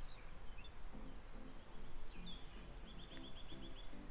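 Faint outdoor ambience with birds calling: low calls repeat from about a second in, and a quick trill of about eight high chirps comes a little after three seconds in, over a steady low rumble.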